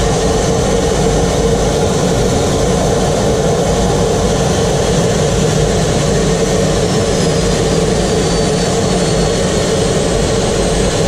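Jet trainer's engine and rushing airflow heard inside the cockpit in flight: a loud, steady roar with a constant hum and a faint whine that slowly falls in pitch. It cuts off suddenly at the end.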